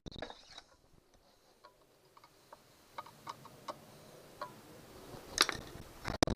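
Scattered light clicks and taps of small parts and tools being handled, with one louder clack about five and a half seconds in; the engine is not running.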